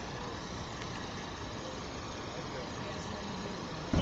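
Steady street traffic noise with faint voices in the background. A single brief thump near the end is the loudest sound.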